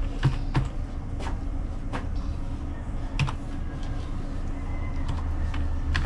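Computer keyboard keys pressed one at a time while a password is typed: slow, irregular clicks about once a second, over a low steady hum.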